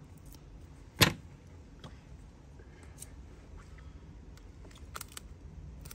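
A Zippo lighter being handled: one sharp metallic click about a second in, then a few faint clicks.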